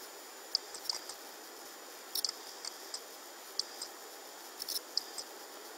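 A few faint, short clicks at irregular moments over a quiet background hiss.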